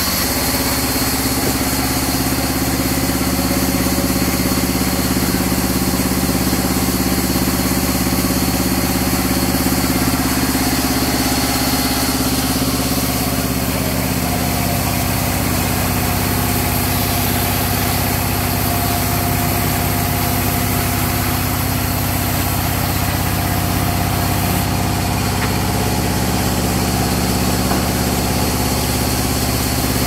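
Sawmill band saw running with a steady low mechanical hum while mahogany planks and a log are fed through its blade.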